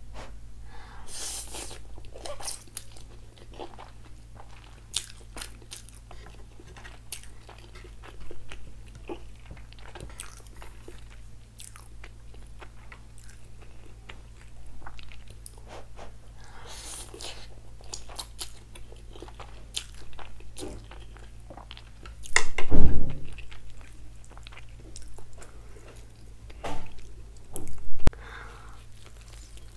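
Close-miked mouth sounds of someone eating Atta Maggi instant noodles: chewing and biting with many short sharp crunches, and one louder thump about three quarters of the way through.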